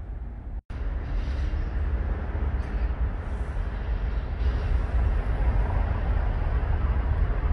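Steady low rumble of outdoor background noise, broken by a brief dropout less than a second in.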